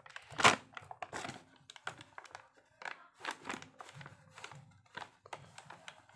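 Foil pouch of powdered milk crinkling and rustling as it is handled, a run of irregular crackles, loudest about half a second in.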